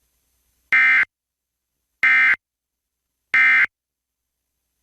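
Emergency Alert System end-of-message (EOM) code: three short bursts of SAME digital data tones, about 1.3 seconds apart, signalling that the alert message is over.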